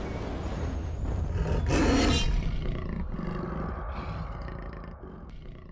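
Intro sound effect: a deep rumble with a loud animal roar swelling about two seconds in, then fading away.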